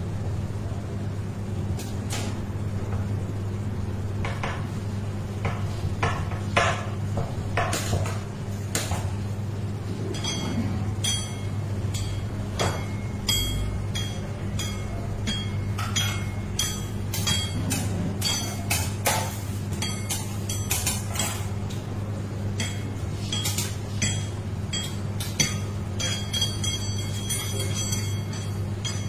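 Long knife clinking and scraping against a metal cake turntable as a chocolate sponge cake is sliced, in scattered irregular clicks, over a steady low hum.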